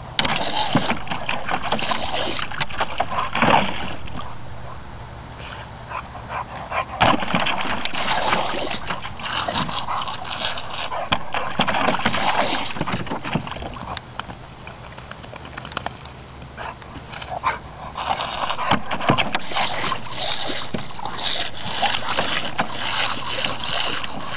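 Garden hose spraying in long hissing stretches while a dog lunges and bites at the water, with sudden splashes and snaps and the dog's excited noises.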